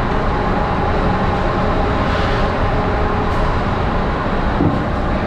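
Steady machinery noise of a ship's engine room: a loud, even rumble with a few faint steady hum tones running through it.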